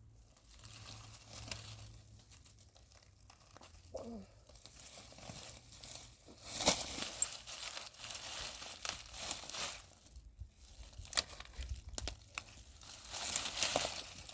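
Intermittent crinkling and rustling with scattered sharp clicks, loudest about six and a half seconds in and again near the end.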